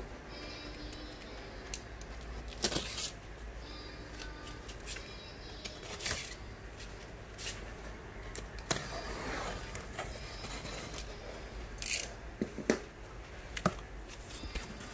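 Utility knife cutting open a sealed corrugated cardboard carton along its seam: scattered sharp clicks and knocks of the blade and carton, with a longer scrape of the cut about nine seconds in, then the flaps being pulled open.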